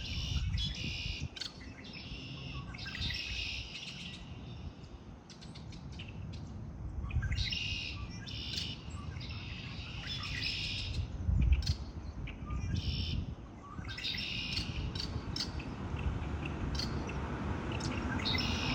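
Songbirds singing: a bird repeats rapid trilled phrases about a second long with short pauses between them, mixed with scattered short chirps, over a low steady rumble.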